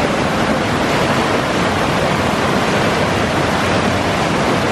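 Shallow river water rushing and splashing over a rock slab, a steady loud rush.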